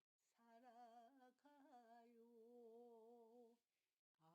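Near silence, with a faint voice humming a few held, wavering notes.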